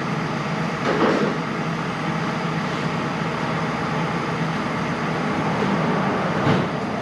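A steady droning hum, broken by two short clatters of hand tools being handled, about a second in and again near the end.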